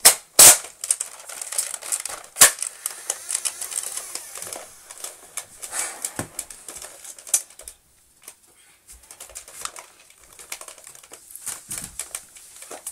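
Irregular clicks, knocks and rustles of a child moving about a small bedroom, with two sharp knocks in the first few seconds. Near the end come footfalls on the rungs of a metal loft-bed ladder.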